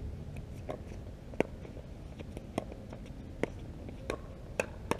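Pickleball rally: a run of sharp, short pops from paddles hitting the plastic ball and the ball bouncing on the hard court, about seven in all, the loudest about a second and a half in. A steady low rumble runs under them.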